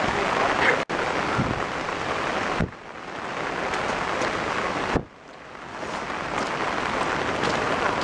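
Steady rain with wind on the microphone, a dense rushing noise. It drops away sharply twice, about two and a half and five seconds in, and swells back each time.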